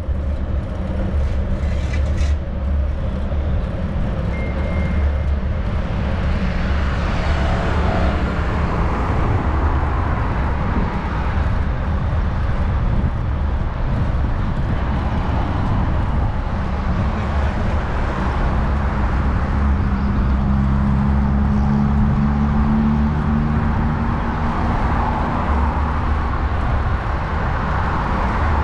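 Road traffic going by on the adjacent avenue, heard from a moving bicycle over a steady low rumble of wind on the microphone. The traffic swells twice, and a vehicle's engine drones more loudly about twenty seconds in.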